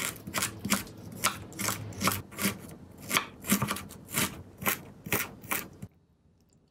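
Kitchen knife slicing and mincing fresh ginger root on a wooden cutting board: about a dozen strokes, roughly two a second, stopping near the end.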